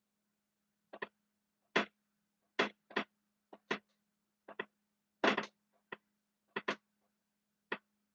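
Dry-erase marker writing on a whiteboard: about a dozen short, sharp strokes at an uneven pace.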